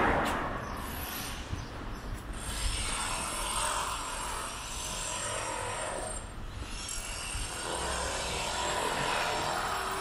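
City street traffic: cars passing on the road, their sound swelling and fading over a steady urban hum, loudest as one goes by at the start.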